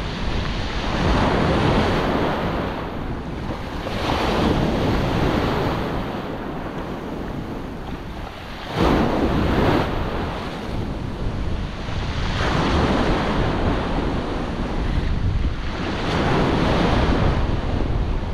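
Ocean surf: waves breaking and washing up the shore in surges every few seconds, the loudest a sudden crash about nine seconds in. Wind buffets the microphone throughout.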